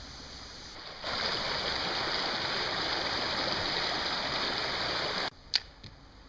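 Creek water rushing, a steady sound that starts suddenly about a second in and cuts off suddenly about a second before the end. A single sharp click follows shortly after it stops.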